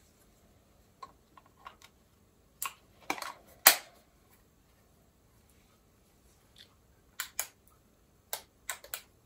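Sharp plastic clicks and knocks from a handheld Lightway rotating LED torch being handled and its switch pressed: a cluster of clicks in the first few seconds, loudest about three and a half seconds in, then a quiet pause, then quick pairs of clicks near the end.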